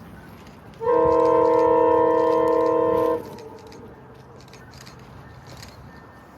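Locomotive air horn sounding one long blast of about two seconds, a steady chord of several notes that starts and stops abruptly.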